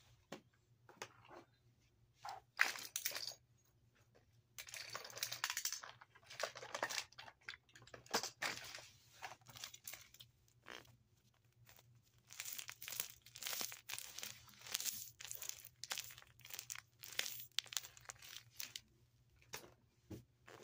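Fidget toys being handled and sorted: irregular crinkling, rustling and clicking, in short bursts with brief pauses between.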